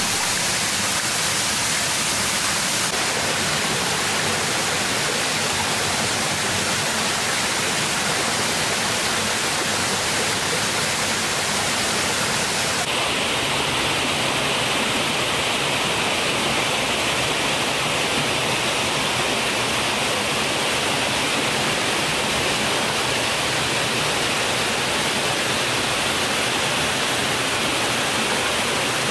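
Waterfall rushing: a steady, dense roar of falling water. Its tone changes abruptly about 3 seconds in and again about 13 seconds in, becoming hissier in the second half.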